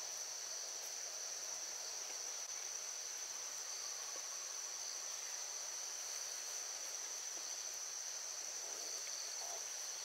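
A steady, high-pitched chorus of insects, droning without a break.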